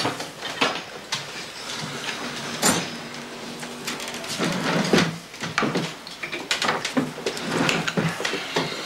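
Breakfast-table clatter: scattered clinks and knocks of mugs, spoons and jars, and a wooden bentwood chair being taken hold of and moved at the table.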